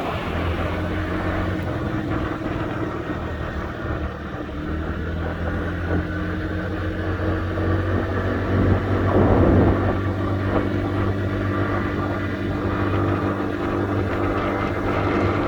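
Honda Dio AF62 scooter engine running steadily, with a louder surge about nine seconds in.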